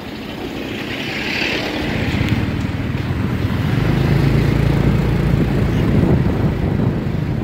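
Motorbike engine running during a ride through city traffic, with wind rumbling on the microphone. The sound grows louder about two seconds in, with a steady low engine hum through the middle and a brief hiss about a second in.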